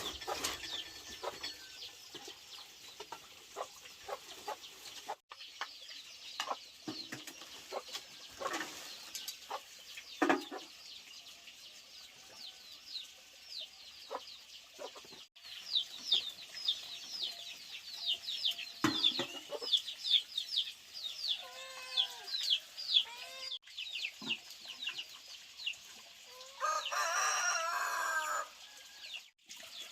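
Chickens clucking, then a rooster crows once for about two seconds near the end. Many quick, high chirps run through the middle, with a few scattered knocks.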